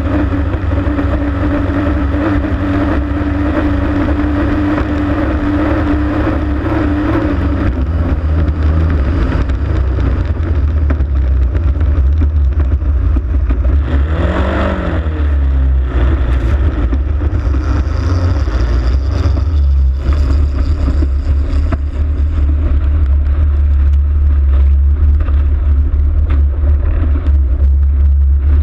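Racing hydroplane's engine running flat out, heard from on board over a heavy low rumble. A steady engine drone fades out about a quarter of the way in, and about halfway through there is a brief rise and fall in pitch.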